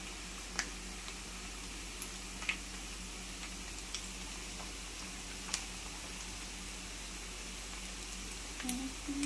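Pork pieces frying in hot oil in a skillet: a steady sizzle with a few scattered pops and crackles.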